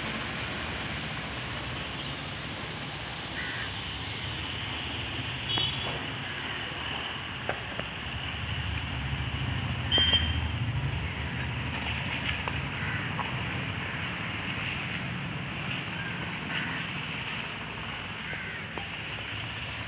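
Steady outdoor urban background of road traffic, with a few light knocks and one louder thump about ten seconds in.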